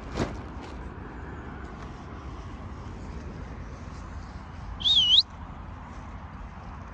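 Steady low background noise, broken about five seconds in by one short warbling whistle that dips and rises in pitch. A brief tap comes right at the start.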